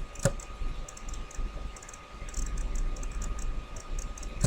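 Typing on a computer keyboard: irregular light key clicks, with a sharper click about a quarter second in and another near the end, over a faint steady hum.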